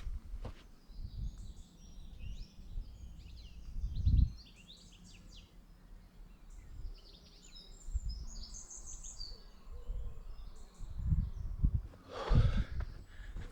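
Small songbirds twittering in short, rapid bursts of song, over gusts of low rumble from wind buffeting the microphone, loudest about four seconds in and again near the end.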